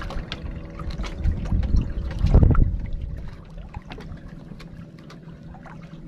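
Sea water sloshing and splashing against the side of a small wooden boat, with small knocks, over a steady low hum. A heavy low surge of water noise comes about two seconds in.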